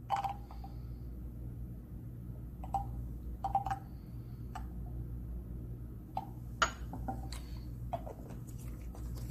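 Scattered small clicks and taps of a plastic screw cap and a small glass beaker being handled on a lab bench as sodium hydroxide solution is poured, some with a brief glassy ring, over a steady low room hum.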